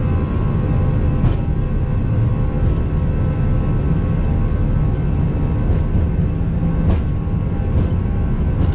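Airliner rolling along a runway, heard from the cockpit: a loud, steady low rumble from the engines and wheels, with an irregular series of short knocks, about one every second or so, as the wheels run over the runway surface.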